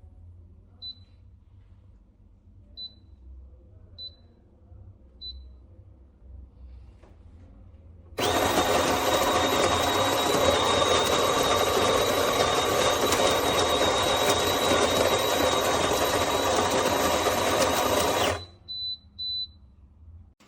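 Chefman electric burr coffee grinder grinding beans: the motor runs for about ten seconds with a steady high whine over a coarse grinding noise, stops suddenly, then gives two brief pulses. A few faint short high tones come before it starts.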